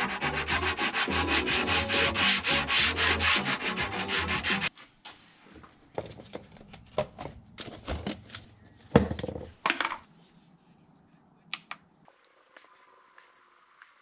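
Rapid, even rubbing or sanding strokes, about six a second, cut off sharply about five seconds in. Then come scattered light clicks, rustles and one sharp knock as plastic mixing cups and the epoxy pump are handled with gloved hands.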